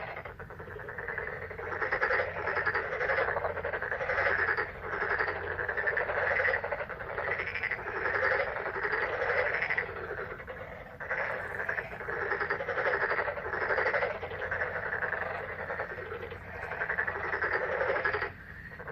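A dense chorus of frogs calling, many overlapping croaks forming a continuous pulsing din that eases off briefly about halfway through and again near the end.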